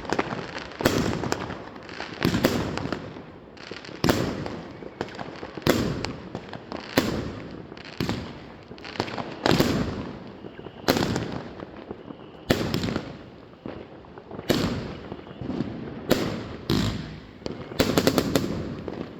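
Fireworks going off one after another, a sharp bang about once or twice a second with crackling noise between the bangs, in the way a fireworks battery fires its shots in sequence.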